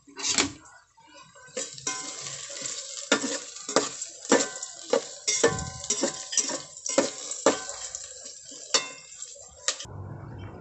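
A cooking utensil stirring garlic, onion and ginger sautéing in hot oil in a metal pot, clanking against the pot about once or twice a second over a frying sizzle.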